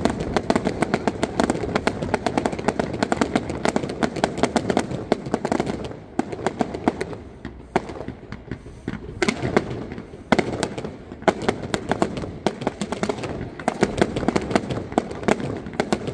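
Fireworks display: a dense volley of cracks and bangs from aerial shells bursting, which thins out about six seconds in, then builds back to a thick barrage near the end.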